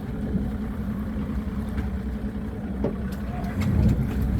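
Boat engine idling steadily, a low even hum.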